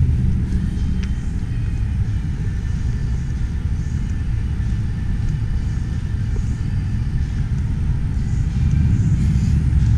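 Wind buffeting a GoPro's microphone as the camera moves outdoors: a steady, uneven low rumble.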